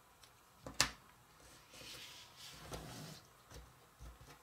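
Jigsaw puzzle pieces being handled on a tabletop: one sharp click a little under a second in, then soft rustling and sliding, and a few light taps near the end.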